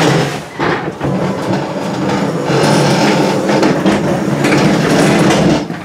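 A table being dragged: a loud, continuous scraping rattle lasting several seconds.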